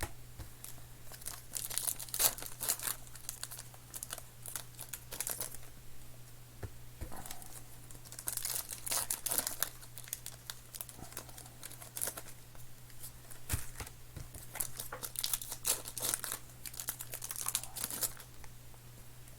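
Trading card pack wrappers being torn open and crinkled by hand, in repeated short crackling bursts, over a low steady hum.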